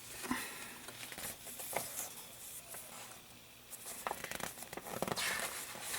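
Paper rustling and crinkling as a folded, accordion-style instruction sheet is handled and opened out, with a few soft taps.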